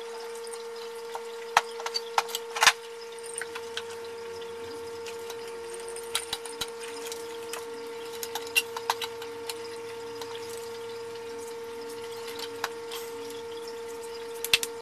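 Metal clamps being set and tightened over a glued guitar-neck scarf joint: scattered sharp clicks and clacks, loudest in the first few seconds and again in a cluster partway through, over a steady hum.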